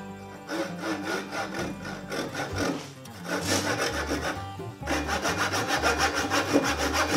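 Japanese pull saw cutting a kerf into the top of a wooden hatchet handle held in a vise, the teeth rasping through the wood in quick short strokes. It pauses briefly about three seconds in, then saws steadily and louder from about five seconds in.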